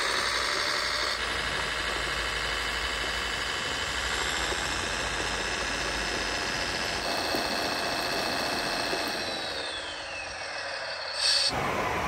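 Radio-controlled model tractor pulling a loaded trailer through sand, its drive giving a steady mechanical hum and whine. The pitch falls as it slows about ten seconds in, and a louder, different sound breaks in suddenly near the end.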